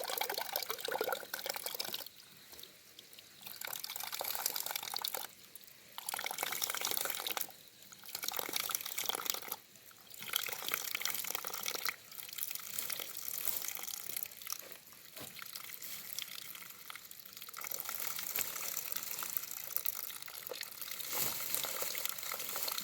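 Water running and splashing in spells of a few seconds, with short breaks between them, as when water is poured or used for washing at a vessel.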